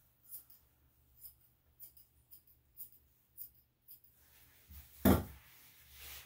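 Grooming scissors snipping a dog's facial hair: about seven short, crisp snips, roughly two a second. About five seconds in comes a single loud thump.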